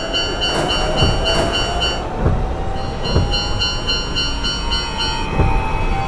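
A Japanese level-crossing warning bell ringing over and over in an even beat, stopping about five seconds in. Under it an electric train passes, with a motor whine that slowly rises in pitch and a few low wheel clacks.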